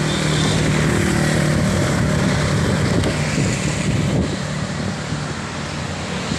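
Wind rushing over the microphone of a moving rider, mixed with road traffic noise. A nearby vehicle's engine hums steadily for the first second or two, then fades.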